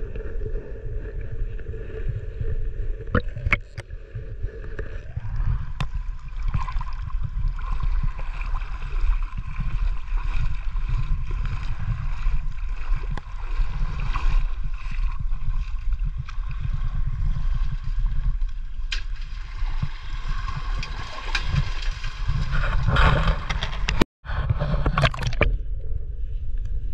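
Sea water gurgling and sloshing over a steady low rumble, with a few scattered clicks and knocks. The sound cuts out completely for a moment near the end.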